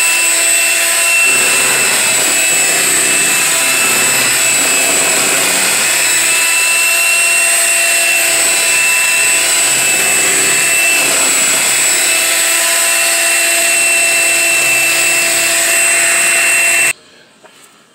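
Electric hand mixer running steadily, its beaters whipping instant vanilla pudding and milk in a bowl, with a steady motor whine; it cuts off suddenly near the end.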